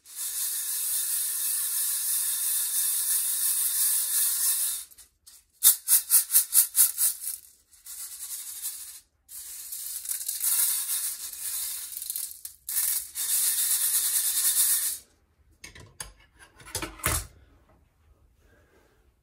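Freshly roasted coffee beans rattling and hissing as they are swirled and shaken in a stainless-steel colander and rubbed by hand to shed their chaff, with two spells of quick shaking about four strokes a second. It stops about 15 seconds in, and a couple of knocks follow as the colander is set down in the sink.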